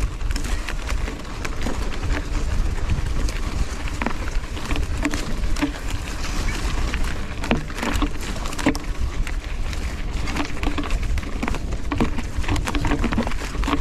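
Mountain bike ridden over rough trail through brush: branches brushing and scraping against the bike and rider, with frequent clicks and rattles over a steady low wind rumble on the microphone.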